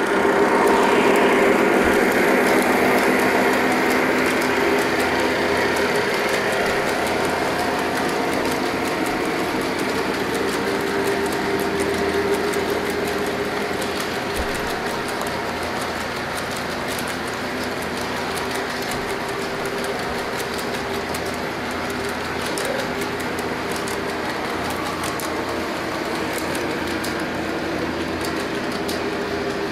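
Lionel model train of scale tank cars rolling along metal track: a steady hum of wheels on the rails, with faint clicking. It is loudest about a second in and slowly eases off.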